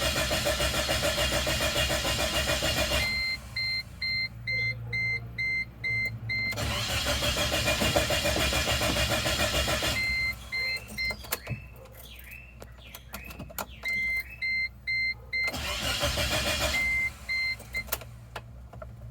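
1998 Chevy Tracker engine being cranked by its starter in three attempts, turning over steadily without firing: a crank-no-start condition. Between the attempts a steady electronic beep repeats about three times a second, with a few clicks in the middle pause.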